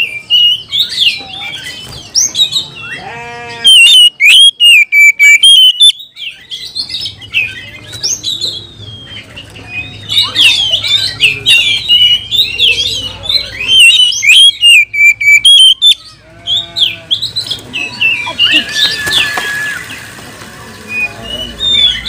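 Oriental magpie-robin singing in loud, rapid bursts of high chirps, whistles and harsh chatter, broken by short pauses. This is the agitated, over-excited song of a male kacer.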